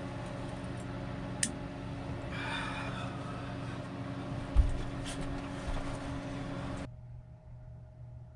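Steady electrical hum of a small 900-watt electric space heater running, with a couple of faint clicks and one low thump about four and a half seconds in. About seven seconds in the hum cuts off abruptly to a quieter, thinner hum.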